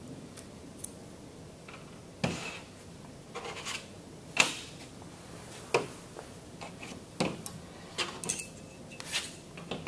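Hand tools and stainless steel pump parts being handled on a tabletop: a pick and snap ring pliers picked up and set down, and a metal pump housing touched. A scattered series of about a dozen sharp clicks and knocks, the loudest about four seconds in.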